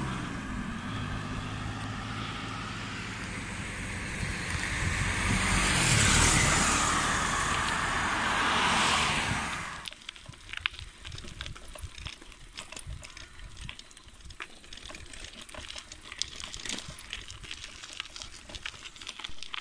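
Road traffic at night: a vehicle engine hums steadily while a rushing noise swells twice as traffic goes by. About halfway through the sound cuts to a much quieter stretch of scattered light clicks and scuffs.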